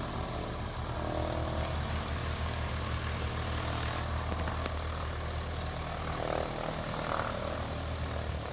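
Piper Cherokee PA-28-150's four-cylinder Lycoming engine and propeller running steadily at taxi power as the plane rolls past.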